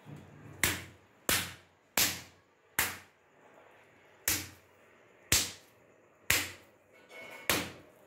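Stretched paratha dough slapped down onto a stone countertop, eight sharp slaps mostly under a second apart with a longer pause midway. This is the dough being stretched thin to form the layers of lachha paratha.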